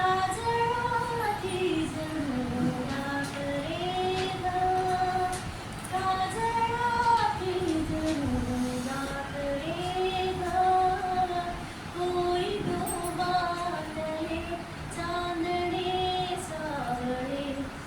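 A high female voice singing a song solo, holding long notes with smooth melodic glides between them.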